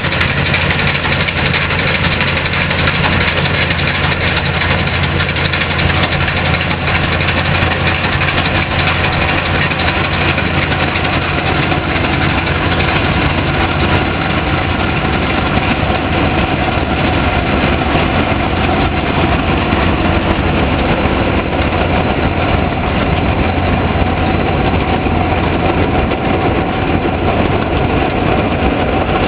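Epple Mobil 210 plot combine harvesting grain, its engine and threshing machinery running steadily under load.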